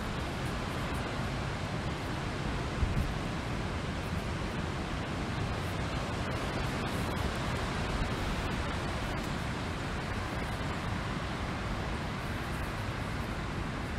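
Wind blowing steadily across open ground, a constant rushing noise, with one brief stronger low gust about three seconds in.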